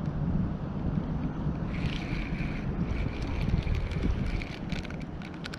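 Wind buffeting the microphone, with a spinning reel being cranked from about two seconds in: a steady thin whir as line is retrieved, joined by a run of quick clicks in the second half.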